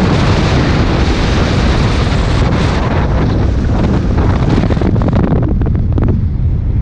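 Wind buffeting the microphone of a camera on a moving vehicle: a loud, steady low rumble with hiss. The hiss thins out about five seconds in, leaving the rumble and some crackles.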